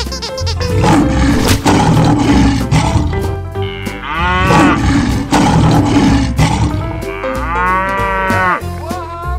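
Two long animal calls from cartoon bull and tiger sound effects, one about four seconds in and one near the end, over background music with a steady beat.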